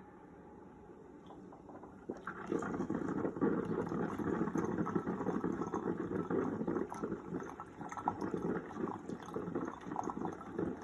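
Ninja coffee maker starting to brew: water bubbling and gurgling through its heater, beginning about two seconds in. This is water drawn through a line that had been air-locked, showing the fix has worked.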